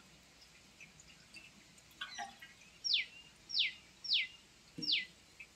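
A bird calling: four short, quick downward-sweeping chirps about two-thirds of a second apart in the second half, over faint outdoor quiet.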